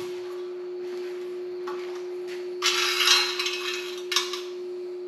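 Metal clatter and scraping as a stainless propane burner is set onto the steel plow-disc plate and shifted into its angle-iron brackets, loudest about two and a half to three and a half seconds in, with a shorter knock a little after four seconds. A steady humming tone sounds underneath.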